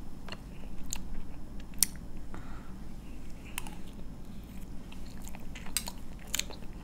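Close-up mouth sounds of a person chewing a mouthful of cream cake taken from a spoon, with scattered sharp little wet clicks.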